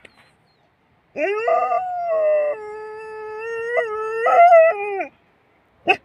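A dog howling: one long howl of about four seconds starting about a second in, held at a fairly steady pitch, rising briefly near the end before trailing off.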